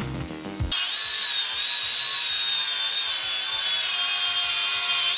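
Worx cordless angle grinder with a flap disc grinding a steel plate: a steady high whine over grinding noise that starts about a second in, the pitch holding level under load without bogging down. Background music plays briefly before it.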